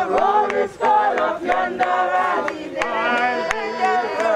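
A group of voices singing together, with sharp knocks and scrapes of shovels in soil and stones now and then.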